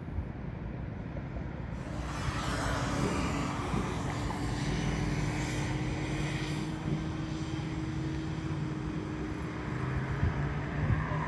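A motor vehicle running steadily with a low hum, its road and wind noise growing louder about two seconds in.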